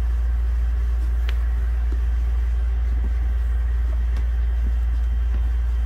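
A running machine's steady low hum, with a faint click about a second in.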